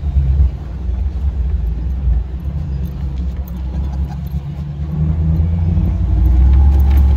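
A Jeep's engine and drivetrain, heard from inside the cab, running with a low rumble as it drives through soft, rutted sand; the rumble grows louder about five seconds in.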